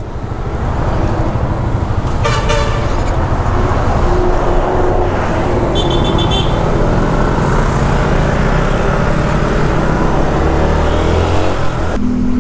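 Yamaha Sniper 150 motorcycle riding through traffic: steady engine and wind noise, with a vehicle horn tooting a little over two seconds in and a shorter, higher horn beep about six seconds in.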